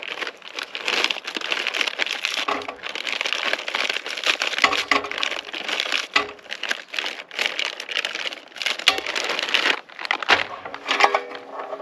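Plastic food bags crinkling and rustling as they are handled and opened, with a few light knocks mixed in.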